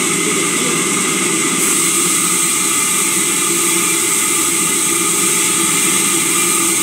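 Sawmill saw running steadily, a loud, even mechanical din, while a plank is pushed along the saw bench. A brighter hiss comes in about a second and a half in.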